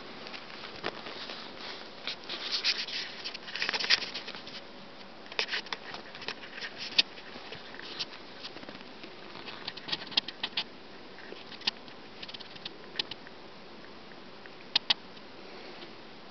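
Red squirrel scrabbling over a person's clothing: irregular light scratches and sharp clicks from its claws on fabric, in scattered clusters with a sharp double click near the end.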